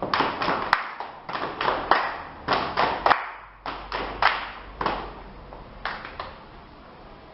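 Body percussion: hands clapping and striking in short rhythmic groups of about three sharp hits, with a brief pause between groups, stopping a little after six seconds in.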